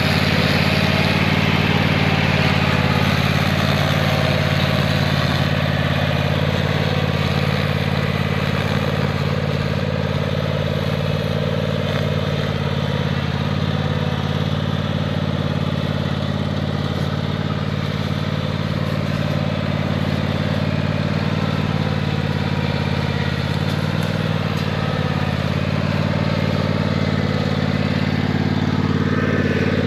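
Lawn mower engine running steadily while the mower-mounted Peco 5000 string trimmer cuts weeds.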